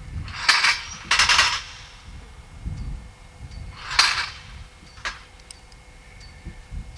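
.38 revolver firing three shots: two in quick succession in the first second and a half, then a third about four seconds in.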